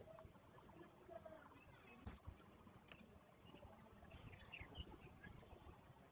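Near silence with a steady faint high-pitched whine, broken by one sharp thump about two seconds in and a smaller click a second later.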